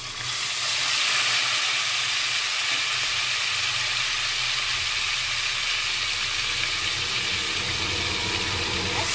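Pieces of pindang mackerel sizzling in hot oil in a wok. The sizzle grows louder just after the start as a second piece goes into the oil, then holds steady.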